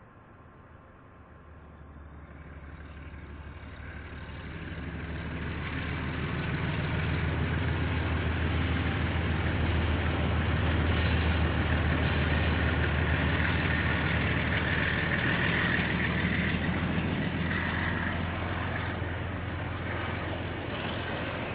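Diesel locomotive of a passing train: a low engine drone that builds over several seconds, is loudest in the middle, and slowly fades, with a higher rushing noise at its loudest.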